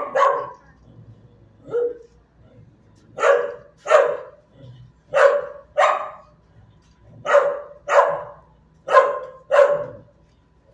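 A dog barking in pairs: two loud barks about half a second apart, repeated every one and a half to two seconds, with one fainter single bark about two seconds in.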